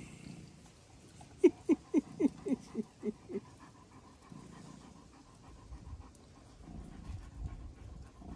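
German Shepherd panting: a quick run of about eight breaths, roughly four a second, for about two seconds. Soft low thuds and rustling follow.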